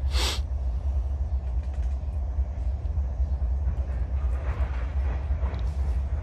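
Steady low rumble, with a short hiss in the first half-second and faint murmuring about halfway through.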